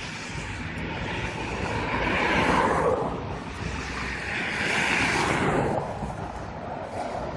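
Cars passing close on a road, two one after the other about two and a half seconds apart, each passing swelling and then fading, over a steady traffic hum.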